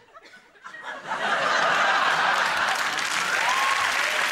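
Studio audience breaks into applause about a second in, with laughter mixed in, the clapping then holding steady and loud.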